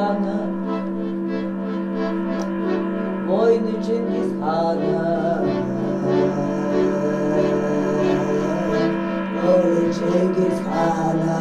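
Folk song performed live: a woman's voice sings drawn-out, sliding phrases over a steady low drone that holds one note throughout.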